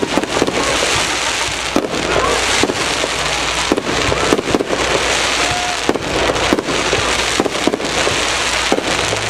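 Aerial fireworks shells bursting in quick, irregular succession, with many sharp bangs over a continuous crackle.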